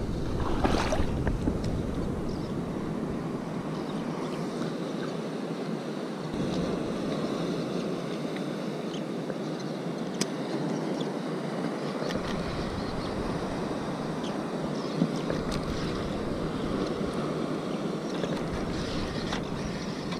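Wind buffeting the microphone over sea water lapping, a steady rushing noise, with a couple of faint clicks.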